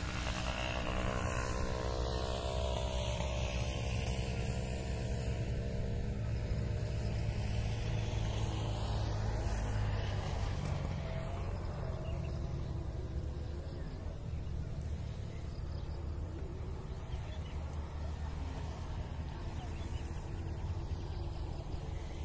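A motor engine's low rumble as it passes, building toward the middle and then fading off.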